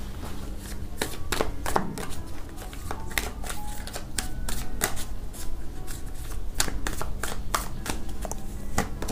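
A deck of oracle cards being shuffled by hand: a steady run of irregular, quick card snaps and flicks.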